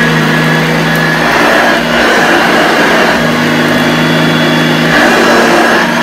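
1981 Hoover Junior U1104 upright vacuum cleaner running while pushed back and forth over a rug, its beater bar beating the carpet. The motor hum shifts in pitch every couple of seconds with the strokes.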